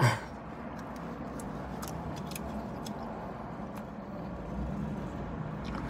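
Chewing and sipping: faint wet mouth clicks from eating a taco and sipping consommé, over a low steady background hum inside a parked car. A short closed-mouth "mm" comes right at the start.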